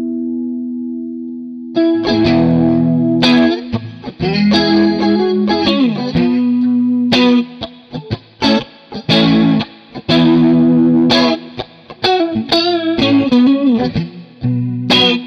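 Stratocaster-style electric guitar played through a Danelectro Money Laundry rotary speaker simulator pedal in mono, giving a Leslie-style spinning-speaker swirl. A held chord fades away, then from about two seconds in a riff of chords and single notes follows in short phrases, with slides between notes.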